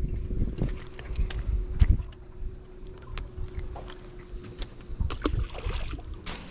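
Clicks and knocks from rods and gear being handled in an aluminium jon boat, over a low wind rumble and a faint steady hum. Near the end a small fish splashes into the river as it is tossed back.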